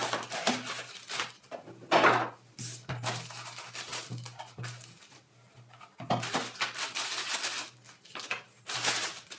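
Plastic packaging bags crinkling and rustling as a small router and its bagged cables are handled, with light clicks and knocks of items set down on a mat. It comes in several bursts, loudest about two seconds in and again near the end.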